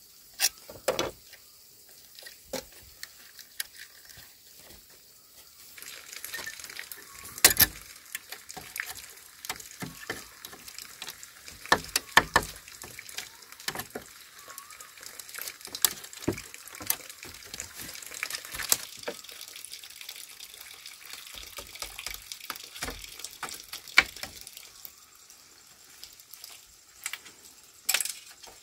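Water splashing and trickling, with many scattered sharp knocks and clicks of things being handled.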